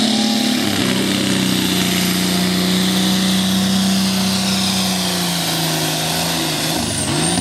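Ford TW-15 pulling tractor's diesel engine running flat out under load while dragging a weight-transfer sled. The engine note holds steady, then sinks lower in the last couple of seconds.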